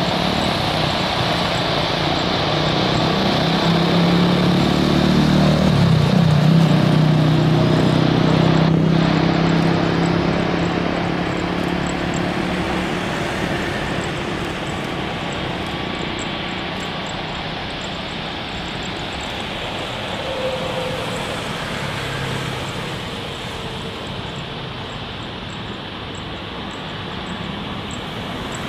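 Boeing 777 jet engines on landing approach: a loud rushing jet noise that builds to its peak as the airliner passes about six seconds in, with a low hum that bends in pitch, then fades steadily as the aircraft touches down and rolls away down the runway.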